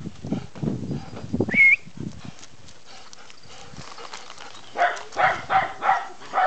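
Standard poodles playing: low growly noises at the start, a short high yelp about one and a half seconds in, then a quick run of about five barks near the end.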